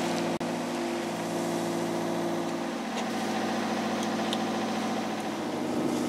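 Sailing yacht's inboard diesel engine running steadily under way, with a hiss of wind and water, and a momentary dropout about half a second in.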